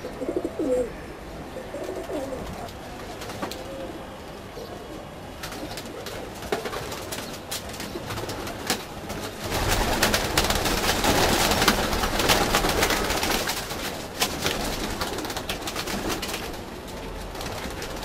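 Domestic pigeons cooing, with low, wavering coos in the first few seconds. About halfway through, a louder stretch of rustling noise with clicks lasts several seconds.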